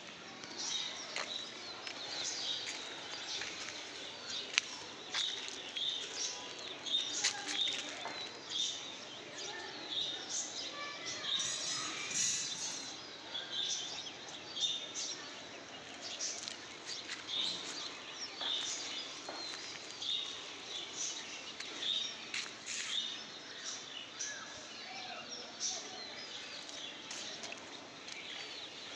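Small birds chirping, many short high calls repeating throughout over steady outdoor background noise, with a single sharp click about four and a half seconds in.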